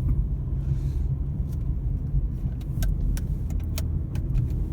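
Steady low road rumble inside a moving car's cabin, with a few faint, sharp clicks in the second half.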